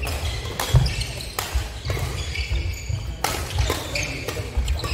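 Badminton rally on a wooden hall floor: a shuttlecock struck back and forth by rackets in a string of sharp hits, with sports shoes squeaking and feet thudding on the court.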